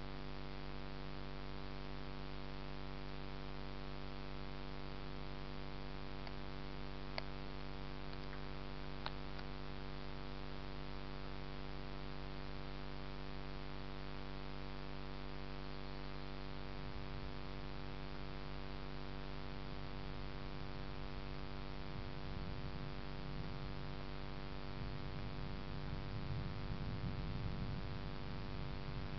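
Steady electrical hum made of many steady tones, with two faint clicks about seven and nine seconds in. A low, uneven rumble comes up in the second half and is loudest near the end.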